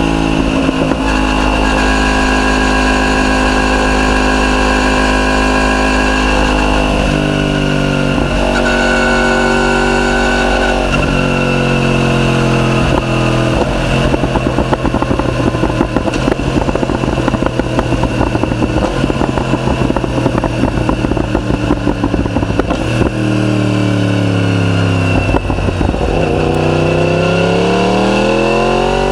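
Yamaha R1's inline-four engine through a decatted Akrapovic full titanium exhaust, ECU-remapped for pops and bangs. It runs at a steady speed, then steps up in revs twice. A long run of rapid, irregular crackles and pops follows, then the revs drop and rise again near the end.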